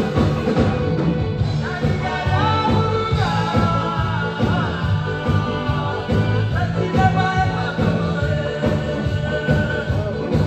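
Live band playing a song: a singer's voice over a steady beat of drums and bass.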